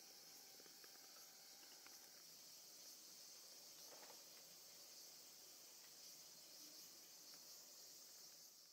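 Near silence: a faint, steady high-pitched hiss.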